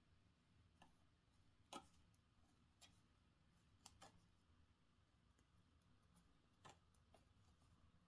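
Near silence broken by about half a dozen faint, irregularly spaced clicks of wooden knitting needles touching as stitches are worked. The loudest click comes a little under two seconds in.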